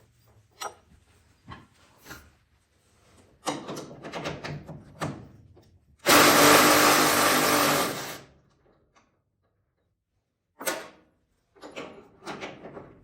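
A handheld power tool runs loudly for about two seconds in the middle, with knocks and clatters of parts being handled before and after it.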